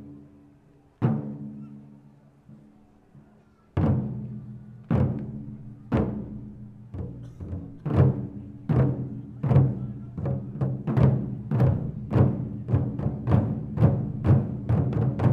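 Japanese taiko drums struck with sticks: a few single strikes with long low ringing decays, far apart, then from about four seconds in the strikes come faster and louder, building into a dense driving rhythm.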